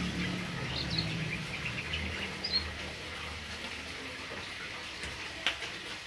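Hill myna giving a few short, high chirps and whistles in the first half, then quieter. A sharp click sounds about five and a half seconds in.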